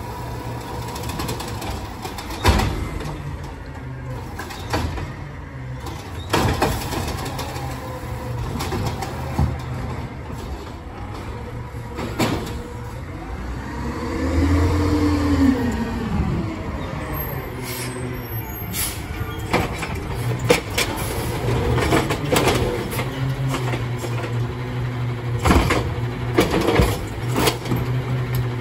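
Peterbilt 520 side-loader garbage truck's engine running steadily, with scattered sharp metallic clanks and knocks as it works the street. Near the middle the engine revs up and back down once as the truck pulls forward.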